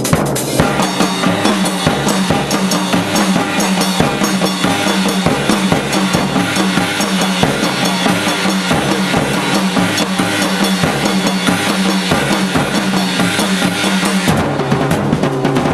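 Two drum kits and hand percussion playing a fast, dense ensemble passage, with bass drum, snare and cymbals all busy. The bright cymbal wash thins out near the end while the drumming carries on.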